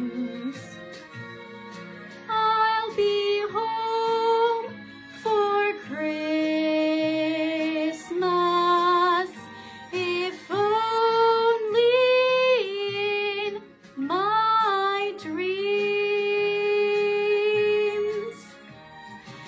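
A girl singing solo over an instrumental accompaniment: slow sung phrases with long held notes, some with vibrato, and short breaks between phrases.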